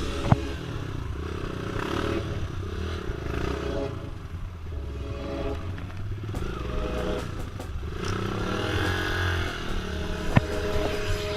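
Trail motorcycle engine running at low revs, with two sharp knocks: one just after the start and one near the end.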